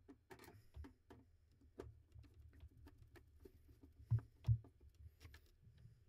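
Faint, scattered small clicks and ticks of a screwdriver working terminal screws and wires being handled on a duct smoke detector's terminal block, with two soft thumps about four seconds in.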